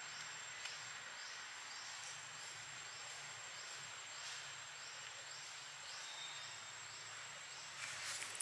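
Insects trilling in the forest: a steady high-pitched tone with a short rising chirp repeating about twice a second. A few sharp clicks come near the end.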